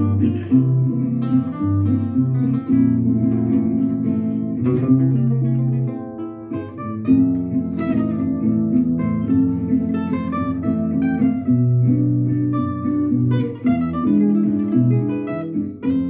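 Instrumental passage of a song led by acoustic guitar, plucked and strummed notes over a steady bass line, with no singing.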